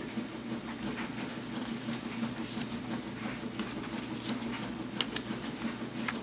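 Paper and card pages of a handmade journal being turned and handled, with soft rustles and a few sharper flicks about five seconds in, over a steady low hum.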